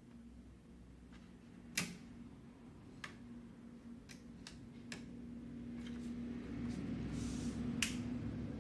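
Sharp clicks and taps of connectors and cables being handled inside an opened LED TV while checking for a bad connection, the loudest a little under two seconds in, over a steady low hum; a brief rustle shortly before the end.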